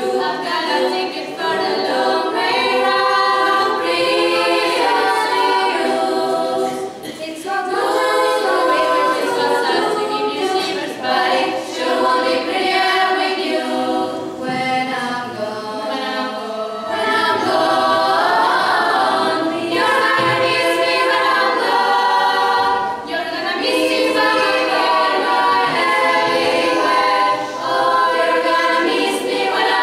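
A girls' choir singing a cappella, several voices held together in sustained phrases with short breaths between them.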